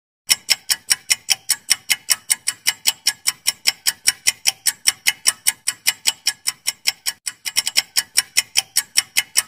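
Clock-ticking sound effect for a quiz countdown timer: sharp, even ticks about five a second, starting a moment in. About eight seconds in the ticks bunch up briefly and come quicker and less even.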